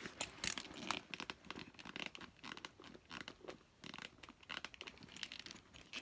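Soft ostrich-embossed leather handbag being handled and turned over: irregular rustling and creasing of the leather with many small clicks, some from its metal handle hardware.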